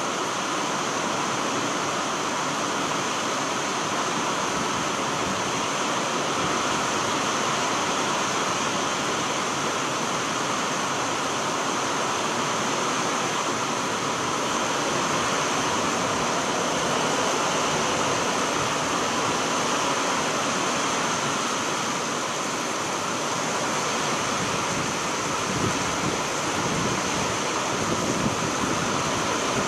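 Heavy rain pouring down steadily on a paved street, a constant loud hiss of falling rain and running water.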